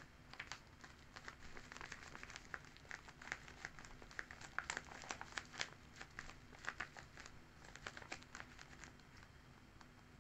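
Paper crinkling and rustling as hands handle and press the flaps of a homemade paper sticker book: a run of small, irregular crackles that stops about nine seconds in.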